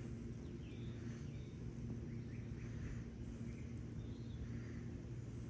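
Outdoor ambience: faint bird chirps scattered over a steady low hum.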